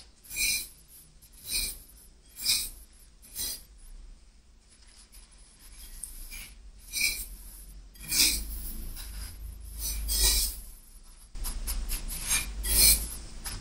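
Dry breadcrumbs being pressed and rubbed by hand onto an egg-dipped bread pocket pie in a bowl: scratchy, crunchy rustling. Four separate presses come in the first few seconds, a few more follow, and the rubbing turns continuous in the last couple of seconds.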